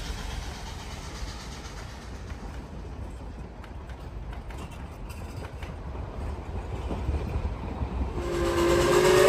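Low, steady rumble of a narrow-gauge steam train. About eight seconds in, the steam whistle of K-28 locomotive #473 starts to blow, a steady multi-toned whistle that quickly grows loud.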